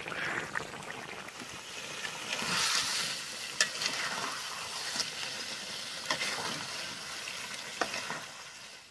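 Food sizzling as it is stirred in a frying pan, with a few sharp clinks of the utensil against the pan. The sizzle swells about three seconds in and fades near the end.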